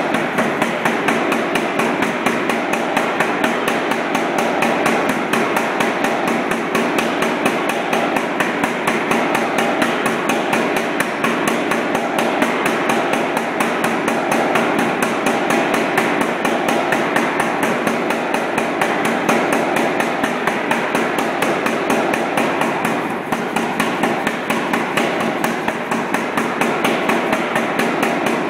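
Anyang 55 lb self-contained air power hammer running continuously, its flat dies striking a red-hot 1.5-inch square steel bar in a fast, steady run of blows as the bar is drawn out to a taper.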